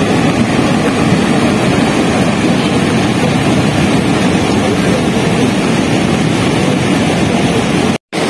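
Flash-flood torrent rushing steadily and loudly, breaking off briefly near the end.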